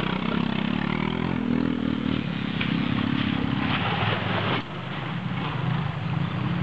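Vintage enduro motorcycle engine running, its pitch shifting with the throttle. It drops suddenly about four and a half seconds in, then picks up again.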